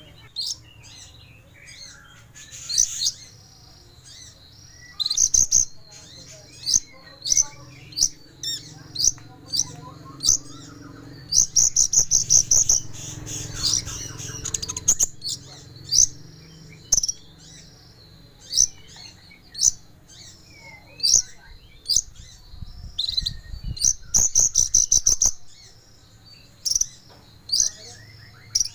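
Kolibri ninja sunbird singing: sharp, high chirps about once a second, broken by fast trilled runs about twelve seconds in and again near twenty-four seconds.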